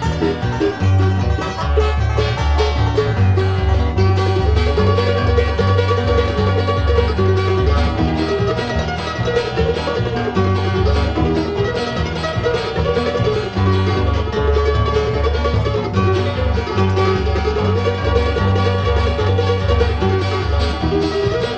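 Bluegrass band playing a fast instrumental breakdown, with five-string banjo picking over guitar, mandolin, dobro and a steady walking bass line.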